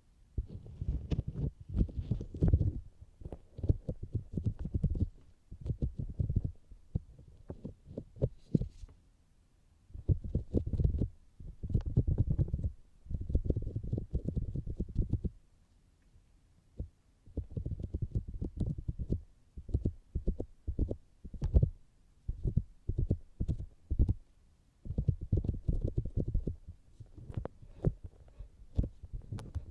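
Fingertips tapping on the outer ears of a binaural microphone: rapid, muffled thumps in bursts of one to two seconds, with short pauses between them.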